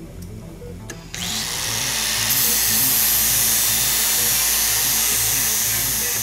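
Angle grinder spinning up about a second in and cutting into a motorcycle subframe, a loud, steady grinding hiss, over background music with a steady beat.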